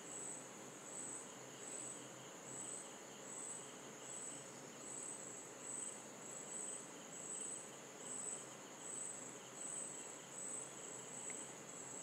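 An insect, most likely a cricket, chirping faintly and steadily in the background: a high-pitched pulse repeating a little faster than once a second.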